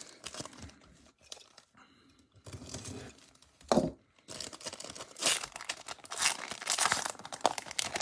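Foil wrapper of a trading card pack being opened and crinkled. It is quiet for the first couple of seconds, a soft thump comes near the middle, and then dense crinkling and tearing of the foil runs through the second half.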